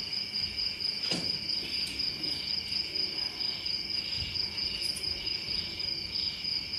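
Crickets chirping in a steady pulsing trill, with a single sharp knock about a second in.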